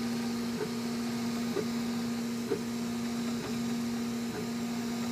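CTC dual-extruder 3D printer running an ABS print at a 40 mm/s feed rate. It makes a steady hum, broken by a short blip about once a second.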